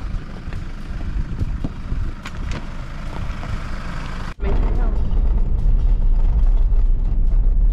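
Jeep Wrangler Rubicon creeping down a rocky trail, tyres crunching and clicking over loose stones with the engine running. About four and a half seconds in, this cuts to a louder, steady low rumble of driving along a gravel road.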